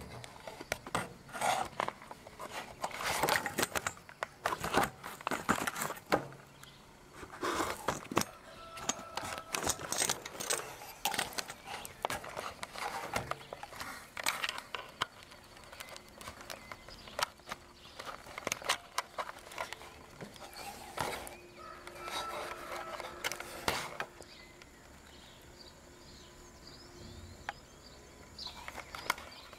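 Irregular clicks, knocks and rustling, thinning out about 24 seconds in.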